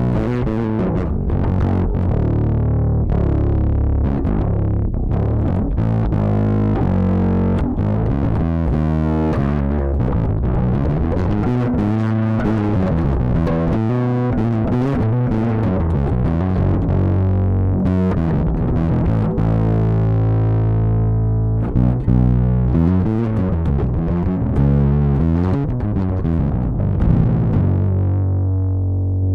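Electric bass guitar played through a distortion effect: a continuous run of sustained, distorted low notes with a dense, buzzy top end.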